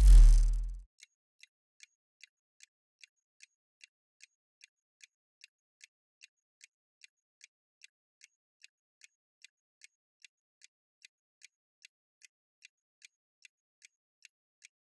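A short whoosh transition effect with a low rumble, then a steady clock-ticking sound effect at about two and a half ticks a second. The ticking counts down the time allowed to answer a quiz question.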